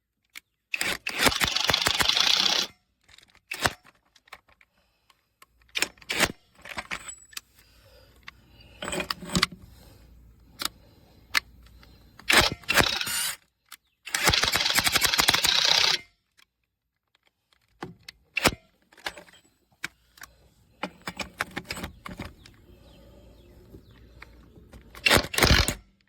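Cordless brushless 1/2-inch impact wrench hammering in three bursts of about two seconds each (about a second in, around fourteen seconds in, and near the end), breaking loose lug nuts that have been on for several years. Clicks and scrapes of the socket and nuts being handled come between the bursts.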